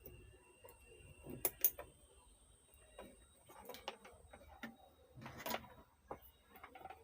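Scattered small clicks and taps of hand tools working on an amplifier circuit board while resistors are removed, with two sharp clicks close together about one and a half seconds in and another cluster near five and a half seconds.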